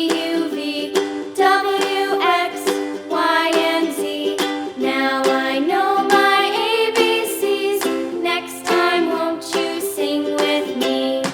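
Background music: a strummed, plucked-string accompaniment under a moving melody line.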